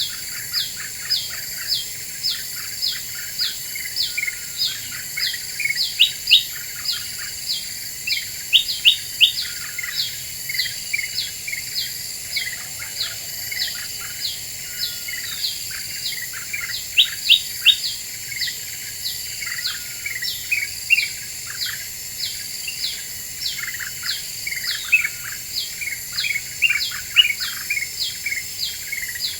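Kutilang emas bulbul calling: a fast, unbroken stream of short, sharp, downward-sliding chirps, several a second, with a steady high-pitched drone behind them.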